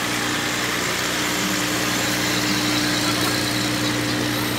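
Diesel engines of fire trucks running steadily as they crawl past at close range, a constant low engine hum, under an even hiss of rain.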